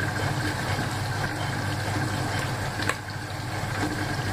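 Chopped tomatoes and onions sizzling in hot oil in a pan on the stove: a steady hiss over a low steady hum. A single light click about three seconds in.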